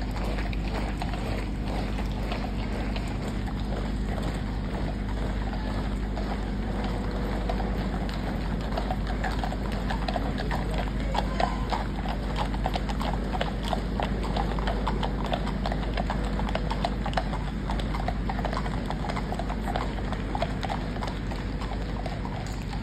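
Hard footfalls clattering on a tarmac road: the boots of a marching column of Foot Guards, with horses' hooves. The clattering is thickest in the middle stretch.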